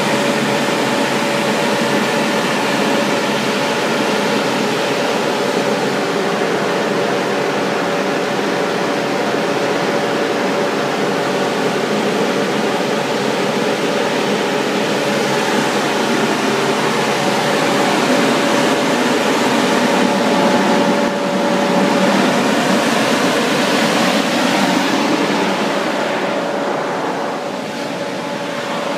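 Tractor-towed Air-O-Fan GBR36 tower airblast sprayer running with its fan at low speed, together with the tractor's engine: a loud, steady rushing drone with a constant whine through it. It eases off slightly near the end.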